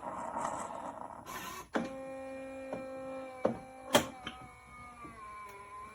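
Miele CM 5310 automatic coffee machine's internal motor starting up about two seconds in and running with a steady whine, as the machine moves on from frothing milk to making the espresso. Several clicks and one sharp knock sound over it, and the whine sinks slightly in pitch near the end.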